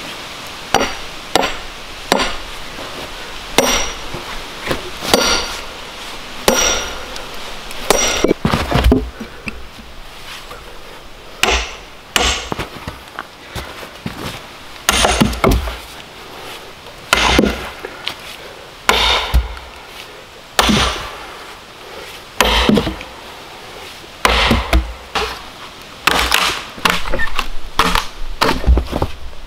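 Steel splitting wedges being driven into a log with an axe: a long run of sharp, ringing metal-on-metal strikes, about one every one and a half to two seconds, as the log is split into planks.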